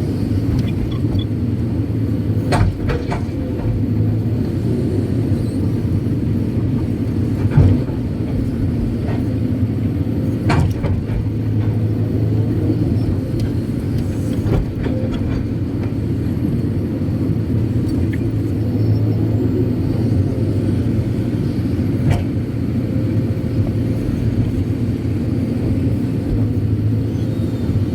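Kobelco SK200-8 Super X excavator's diesel engine running steadily, heard from inside the operator's cab as a low rumble. Occasional short knocks and clunks come through, the loudest about seven and a half seconds in.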